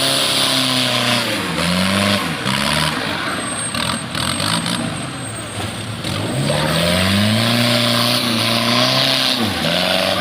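Off-road 4x4 truck engine revving hard under load, its pitch climbing and dropping in repeated surges over a steady hiss. It eases off for a few seconds in the middle, then surges again.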